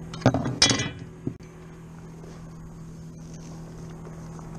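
Two sharp, hard clinks in quick succession in the first second, then a lighter knock, from gear being handled aboard a fishing kayak while a crappie is dealt with. A steady low hum runs underneath.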